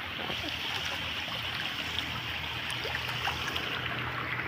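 Small stream of water running steadily over a flat drainage surface, a continuous soft rush with faint trickling.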